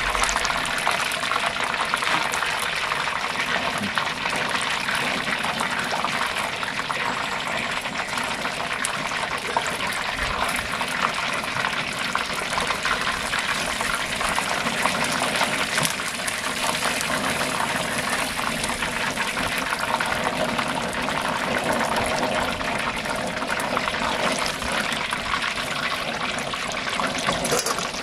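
Battered whole chicken deep-frying in a stockpot of hot oil: a steady bubbling sizzle.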